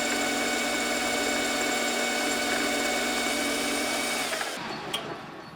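Metal lathe running with a steady motor whine, then switched off about four and a half seconds in and winding down, with a single click shortly after.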